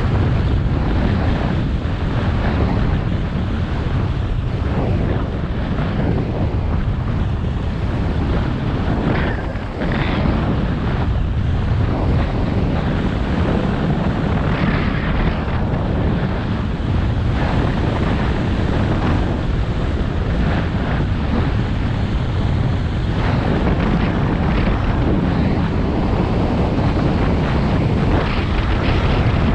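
Wind buffeting a GoPro's microphone while skiing at about 30 mph, a steady loud rumble, with the scrape and hiss of skis on groomed snow coming and going over it.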